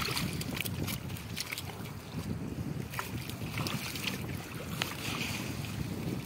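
Wind rumbling on the microphone out on the river, with scattered sharp ticks and patches of hiss as rain falls.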